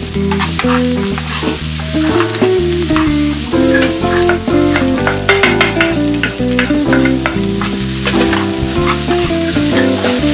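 Chopped vegetables sizzling in hot oil in a frying pan, with a perforated spatula scraping and stirring them in short irregular strokes. Background music plays along.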